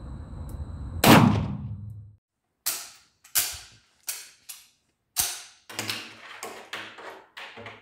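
A single 7.63 mm Mauser C-96 pistol shot about a second in, loud and ringing on in an indoor firing range. After a break, about a dozen sharp metallic clacks and clicks as the pistol is handled and loaded at the bench.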